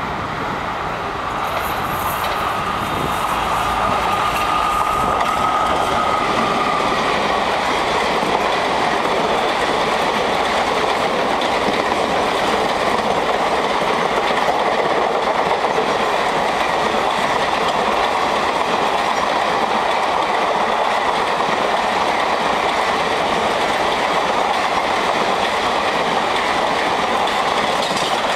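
Long express passenger train hauled by a WAP-4 electric locomotive passing at speed: loud steady rumble and clickety-clack of coach wheels over the rail joints, building over the first few seconds as the train arrives. A thin high steady whine sounds over the first several seconds as the locomotive nears.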